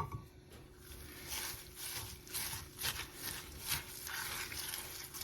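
Crushed potato chips being stirred into melted chocolate and butterscotch in a bowl: a crunchy scraping with each stroke, about two strokes a second, after a short clink at the start.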